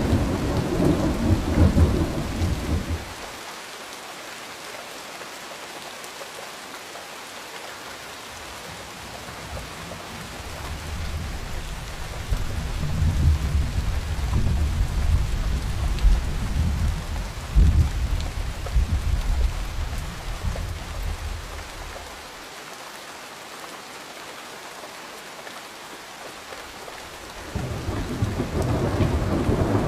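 Steady rain falling through a thunderstorm, with rolls of thunder coming and going: a rumble fading out in the first few seconds, a long rolling peal through the middle with a couple of sharper cracks, and another rumble starting near the end.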